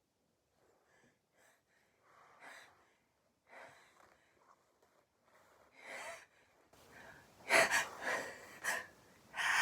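A person gasping and catching their breath in the build-up to a sneeze. The breaths are faint at first and grow into louder, uneven gasps over the last few seconds, with a loud burst right at the end as the sneeze comes.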